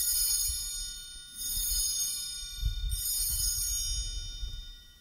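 Altar bells rung three times, about a second and a half apart, each stroke setting off many high-pitched ringing tones that carry on into the next. They mark the elevation of the chalice at the consecration.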